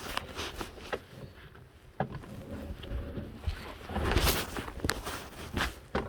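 Workshop handling sounds: scattered clicks and knocks of tools and metal being set up, with a short rushing noise about four seconds in.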